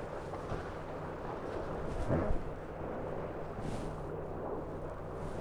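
Steady rush of wind and water around a Tornado catamaran sailing at speed, with a brief louder surge about two seconds in.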